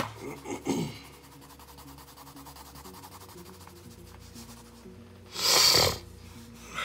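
Pencil scratching and rubbing across drawing paper in sketching and shading strokes: a few quick strokes at the start, light scratching through the middle, and one loud, longer stroke about five and a half seconds in.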